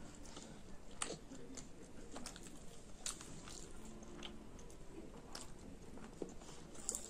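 Faint close chewing of chicken and rice, with lip smacks and scattered soft clicks.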